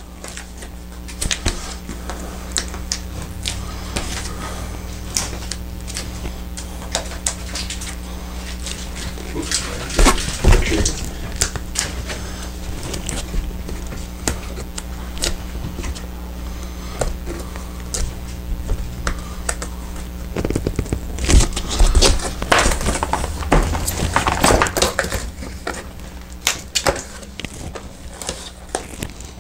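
Stiff panels of a car hauler drawer being folded and pressed together by hand: a run of irregular clicks, crackles and rustles, louder and denser around ten seconds in and again from about twenty-one to twenty-five seconds, over a steady low hum.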